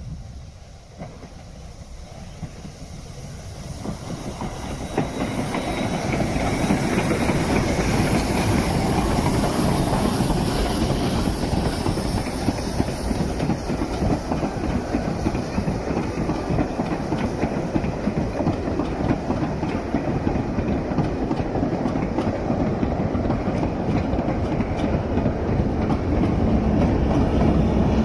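Steam-hauled heritage passenger train climbing a grade. It approaches, growing louder over the first six seconds or so, then runs close past, with the steady sound of the carriages and their wheels on the rails.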